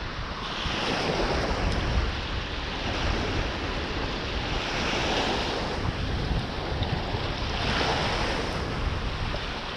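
Small surf waves washing in, swelling every two to three seconds, with wind rumbling on the microphone.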